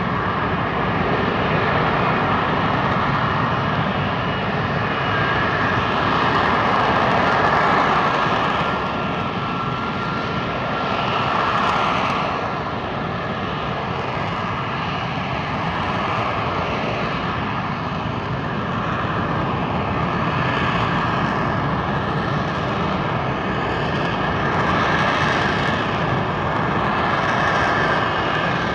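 F-35B Lightning II jet hovering, its engine and lift fan making a steady loud roar with a high whine held over it. The roar swells and eases a few times as the jet holds its hover.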